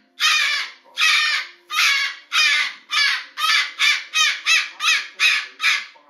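Moluccan cockatoo screaming: a run of about thirteen loud, harsh calls that come faster and shorter toward the end.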